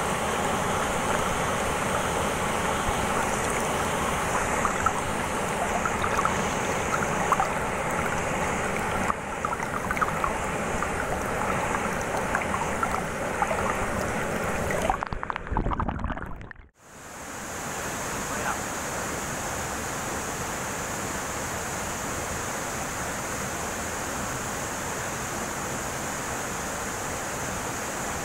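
Waterfall rushing steadily into a rocky plunge pool, with close splashing water. About halfway through, the sound cuts out for a moment and comes back as a smoother, even rush of falling water.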